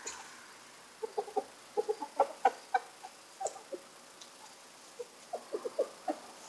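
A flock of hens clucking in short calls while crowding to feed on greens, in two quick runs: one from about a second in and one near the end.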